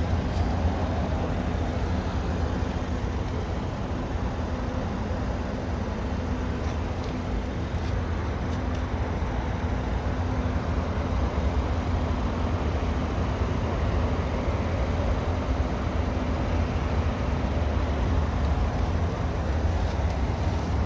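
Mercedes-AMG C43's twin-turbo V6 idling steadily, heard from inside the cabin as an even low hum.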